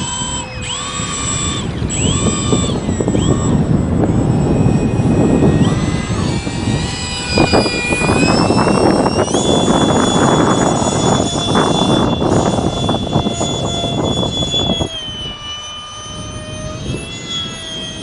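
Electric radio-controlled model Saab Viggen jet flying past: a motor whine that steps and glides in pitch with the throttle over a rushing airflow noise. It grows louder as the model passes close, then drops away about three seconds before the end.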